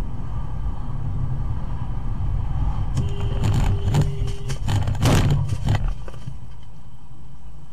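Steady road and engine rumble of a car driving; about three seconds in, a cluster of sharp bangs and crunches from a collision between cars ahead, loudest about five seconds in, with a held tone sounding for about a second and a half at the start of it.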